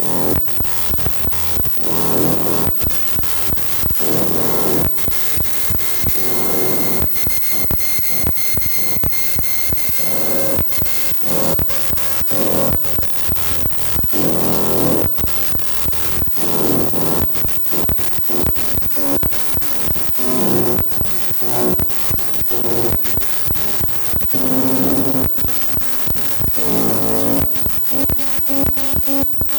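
Electronic music played on hardware synthesizers: a dense stream of noisy, crackling percussive hits over pitched swells that come roughly every two seconds. A thin, high steady tone sounds from about seven to ten seconds in.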